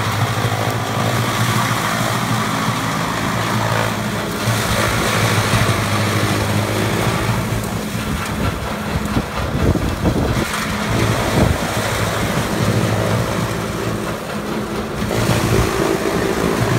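Chaff cutter (forage chopper) running under load while dry corn stalks are fed in and chopped, its blower throwing the chaff out the discharge spout: a steady low machine hum under a rushing, uneven chopping and blowing noise.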